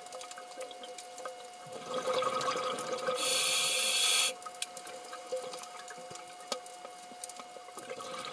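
Underwater ambience with a scuba diver's exhaled air bubbles rising, scattered clicks and a faint steady hum. A louder rush of bubbles builds about two seconds in, topped by a loud hiss lasting about a second.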